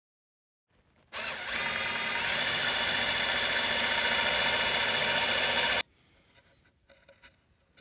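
Cordless drill boring a dowel hole into the edge of a walnut plywood panel, starting about a second in, running steadily at speed and stopping abruptly after about five seconds. Faint small clicks and handling follow as metal dowel centers go into the holes.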